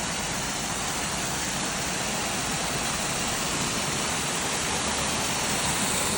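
Waterfall rushing with a steady, even noise of falling water.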